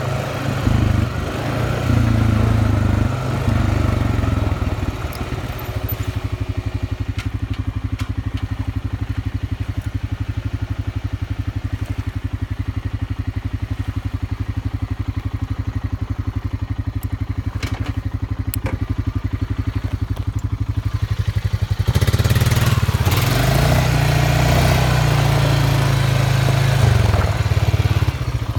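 ATV (quad) engine running, with the revs changing for the first few seconds, then idling steadily for about sixteen seconds. It revs up and down again as the quad pulls away over gravel near the end.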